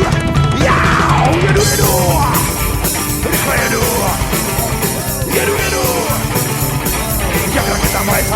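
Loud rock music with a drum kit, dense and unbroken.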